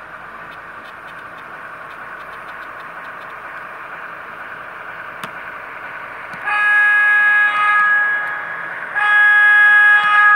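Horn of an MTH HO-scale R-17 subway model's onboard sound system, two blasts: a short one about six and a half seconds in and a longer one near the end. Under them is the steady running noise of the model train.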